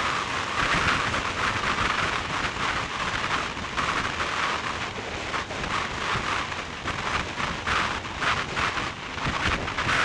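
Wind noise from a car driving at road speed: air rushing over the microphone as an uneven hiss that flutters in strength.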